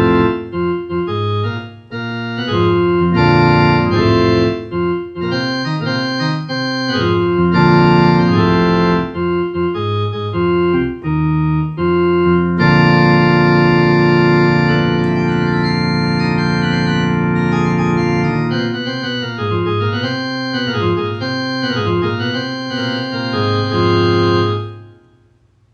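Organ-toned keyboard music: short chords in a stop-start rhythm, then long held chords from about halfway through, with wavering, bending pitch near the end before it fades out.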